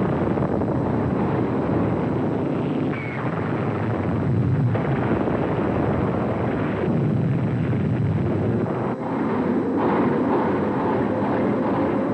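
Wartime battle soundtrack of warplane engines and shipboard anti-aircraft fire with explosions, a loud dense continuous noise that changes abruptly several times as the film cuts.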